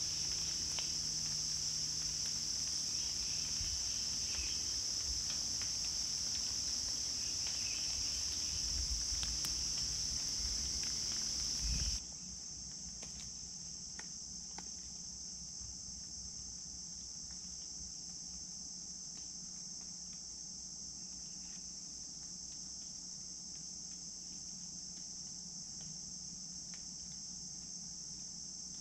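Steady high-pitched drone of a late-summer insect chorus, which drops in level about twelve seconds in.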